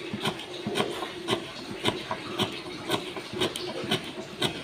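Kitchen knife slicing on a wooden cutting board, the blade knocking on the board about twice a second.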